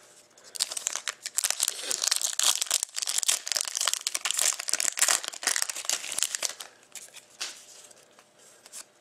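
A foil trading-card pack (2013-14 Panini Totally Certified hockey) being torn open and crinkled in the hands: a dense crackling rustle that eases off about six seconds in, followed by a few faint rustles.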